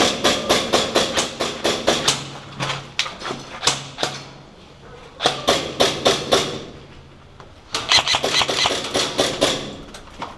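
Airsoft guns firing in four rapid bursts, about six sharp shots a second, with short pauses between the bursts.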